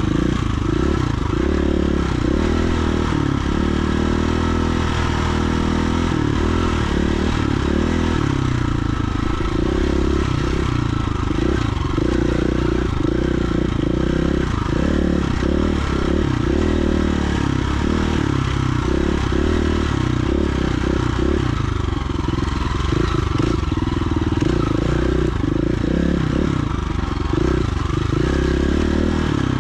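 Dirt bike engine running continuously as the bike is ridden along rocky singletrack, its pitch rising and falling with the throttle.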